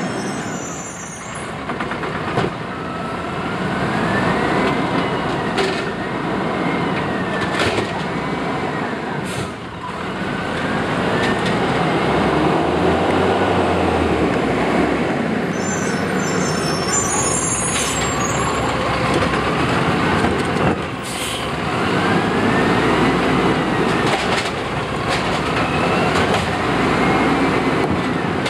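Automated side-loader garbage truck creeping along a row of carts, its engine running with a whine that rises and falls every few seconds as it speeds up and slows. Short air-brake hisses and a few sharp knocks come in now and then, and brakes squeal near the start and again about two-thirds of the way through.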